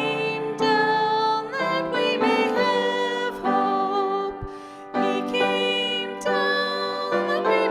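Music: a slow piece of held, pitched notes changing every half second to a second.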